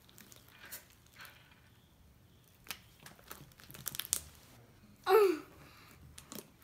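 Homemade glue slime being squeezed and pulled by hand, giving scattered sticky crackles and popping clicks that cluster between about three and four seconds in. About five seconds in comes one louder, brief sound that falls in pitch.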